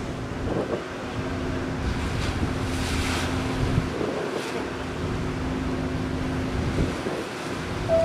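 Steady low hum from the cruise ship Amera's engines and machinery, under wind buffeting the microphone and a wash of water. The water hiss swells briefly about three seconds in and again near the middle.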